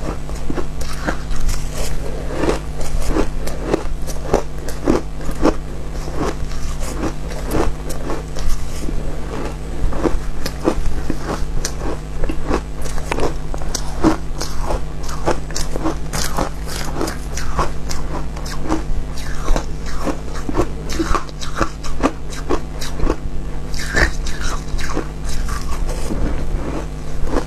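Mouth crunching and chewing frozen shaved ice coated in matcha and milk powder: a loud, quick run of sharp crunches, a few each second.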